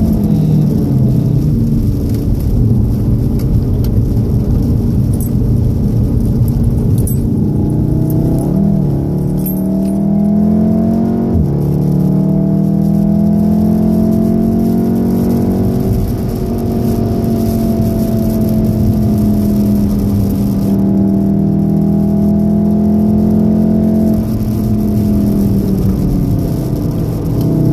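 2014 VW Golf VII R's turbocharged 2.0-litre four-cylinder engine heard from inside the cabin on a fast wet lap, with tyres hissing on the wet road. The revs fall at first, then climb and shift up about eleven seconds in, hold high at speed, and drop again near the end as the car slows.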